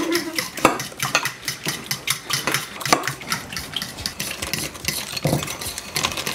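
A spoon scraping and clinking rapidly against a bowl as crushed Oreo biscuits are stirred and scooped, with several quick strokes a second.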